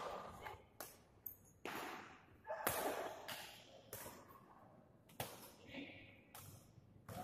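Badminton rackets smacking a shuttlecock back and forth in a rally: a series of sharp, echoing hits about once a second.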